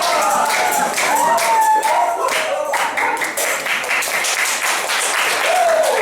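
A group clapping their hands, with voices calling or singing over it in the first few seconds. The clapping thickens into a dense round of applause in the second half.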